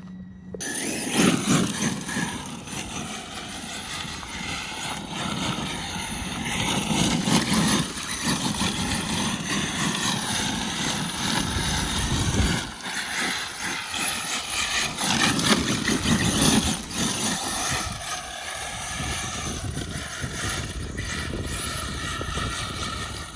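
Arrma Mojave 6S radio-controlled truck being driven hard, its brushless motor whining up and down in pitch with the throttle over tire and gravel noise. It is geared with a high-speed pinion. The sound starts suddenly about half a second in and swells loudest several times.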